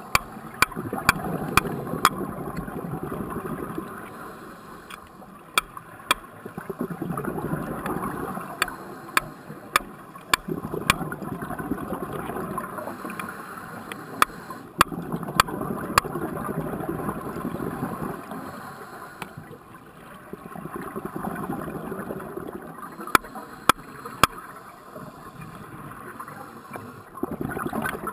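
Hammer blows on a stake being driven into the seabed, heard underwater as sharp clicks, often in runs a few blows about half a second apart. Under them, scuba regulator exhaust bubbles rush in swells that come and go every few seconds.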